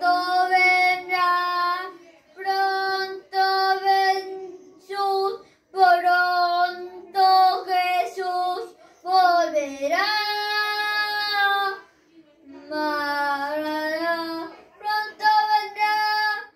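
A boy singing a Spanish hymn solo, unaccompanied, in short phrases with brief breaths between, and one long held note near the middle.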